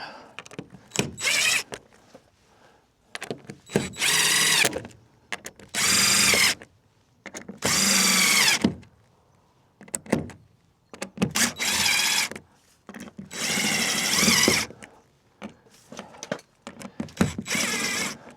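Power drill/driver whining in about seven short bursts with pauses between, as screws are run in one after another along the genoa track.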